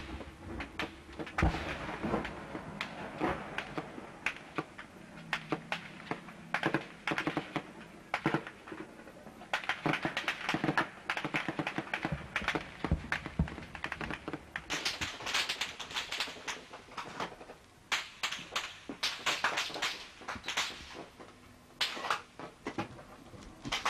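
Small-arms fire: scattered single shots and rapid bursts of automatic fire, irregular throughout and thickest in the second half.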